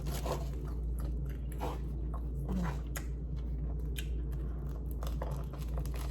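Close-up mouth sounds of someone biting and chewing food, with irregular crunchy clicks scattered throughout over a steady low hum.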